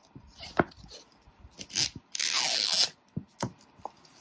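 Plastic wrapping being peeled and torn off a Mini Brands mystery ball: one loud rip about two seconds in lasting under a second, with small crinkles and taps of fingers on the plastic shell around it.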